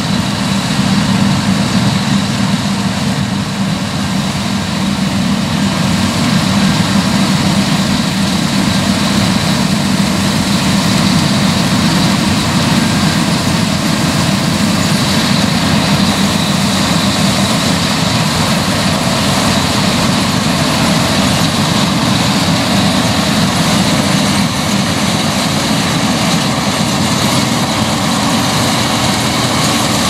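Claas Lexion 7400 combine harvester running while cutting barley: a loud, steady engine and machinery drone with a thin high whine held throughout.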